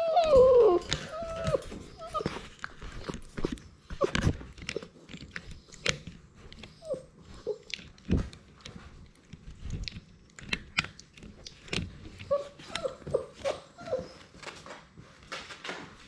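Labrador Retriever puppies mouthing and chewing at a GoPro, with many irregular close clicks and knocks against the camera. A whimper falls in pitch at the start, and short whines and yips come in quick clusters near the end.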